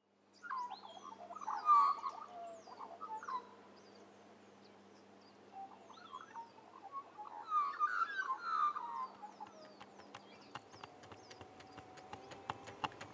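Birds chirping and calling, with two spells of louder calls. Near the end a rapid clicking and a steady whine come in as an electric kick scooter approaches.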